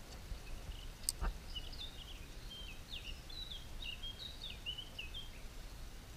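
A songbird singing a quick, varied twittering phrase of about four seconds over the steady rush of river water, with a single sharp click about a second in.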